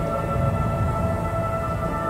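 Background music: an ambient drone of held, sustained tones over a low rumble.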